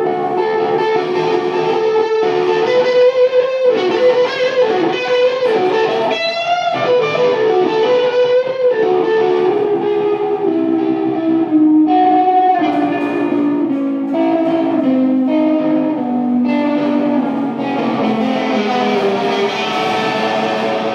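Live rock band music led by electric guitar: sustained melodic notes, some of them wavering, then a slow stepwise descending line of single notes from about ten seconds in.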